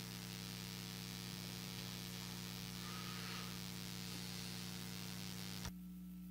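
Dead air on a broadcast audio feed: steady hiss with a low electrical hum. About five and a half seconds in, a click cuts the hiss off and the hum carries on alone.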